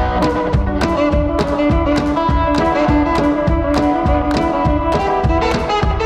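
Background music with a steady drum beat under held instrument tones.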